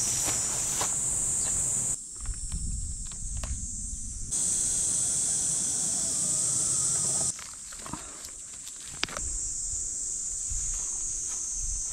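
Steady high-pitched chorus of insects such as cicadas or crickets over a low rumble, breaking off twice for a couple of seconds, with a few light ticks and rustles.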